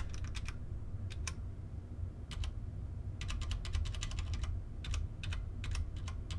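Cherry MX Clear key switches on a V80 mechanical keyboard being pressed in short runs of quick keystrokes, with single presses between the runs, over a low steady hum.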